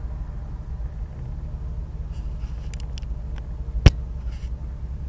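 Steady low rumble of a vehicle driving on a gravel dirt road, heard from inside the cabin, with faint light rattles and one sharp knock just before the end.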